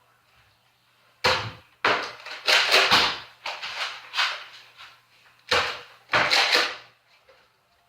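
Sharp plastic clacks and clatter from Nerf blasters being primed and fired: a group of four in quick succession, then two more about three seconds later.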